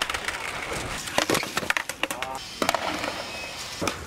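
Skateboard wheels rolling on hard ground, with several sharp wooden clacks of the board popping and landing.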